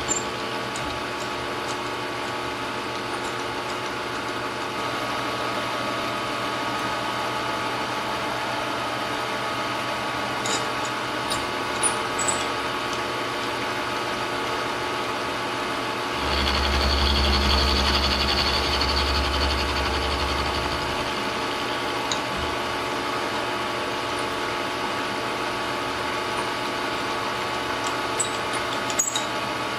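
Milling machine running, its end mill cutting the hex flats on a small steel flange nut held in a hex 5C collet block: a steady mechanical hum that grows louder and fuller for about five seconds past the middle, with a few light clicks.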